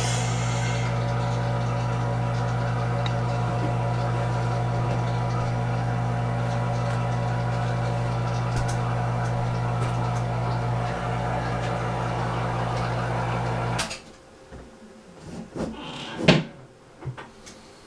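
An electric motor running with a steady hum, switched off about 14 seconds in; afterwards a few light knocks and one sharp click.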